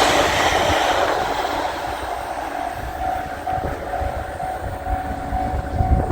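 A train running past a level crossing and fading away, its noise dying down over a few seconds. From about halfway in, the crossing's warning bell rings in an even pulse under it.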